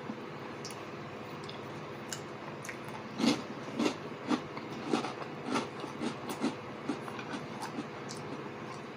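Close-up chewing of a mouthful of egg frittata, with wet mouth clicks and smacks about twice a second starting about three seconds in, over a steady room hum.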